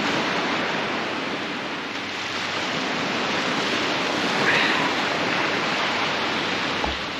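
Steady rush of shallow surf washing in over a flat beach as the tide comes in, with a brief knock near the end.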